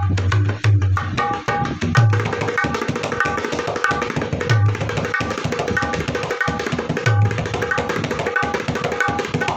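A shisham-wood dholak is played in a steady rhythm: quick, ringing strokes on the treble head, with a deep boom from the bass head about every second and a half.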